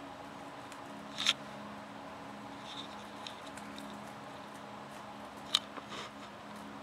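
A few short scuffs and clicks over a steady low room hum, as a kitten plays with a feather toy that is flicked across the carpet: one sharp click about a second in and two more near the end.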